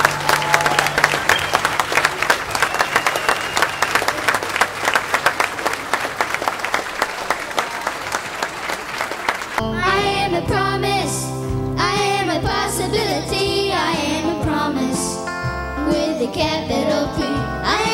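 Audience applauding under the tail of band music for about the first ten seconds, then an abrupt change to a song sung by young boys' voices with a band backing them.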